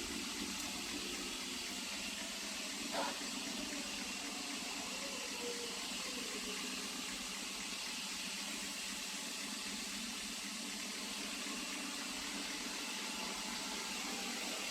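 Roidmi EVE robot vacuum switched on and running with a steady airy whir and low hum, with a single click about three seconds in. The robot is reporting a sweeping-fan fault, which the owner puts down to water getting in.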